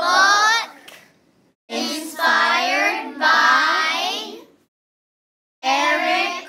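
A child's voice in three drawn-out phrases with swooping, sing-song pitch, separated by short pauses.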